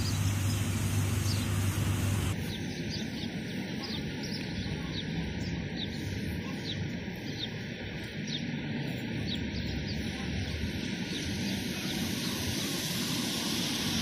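Small birds chirping, short high calls coming every second or so, over a steady background rumble like distant city traffic. A low hum cuts off about two seconds in.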